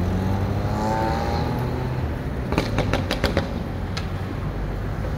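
A sports car's engine accelerating, its pitch rising, followed about two and a half seconds in by a quick run of sharp cracks and one more a second later.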